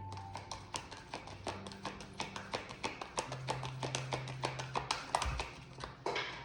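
A tarot deck being shuffled by hand: rapid, irregular clicks of cards slapping together, with a longer rustling riffle about six seconds in. Soft background music continues underneath.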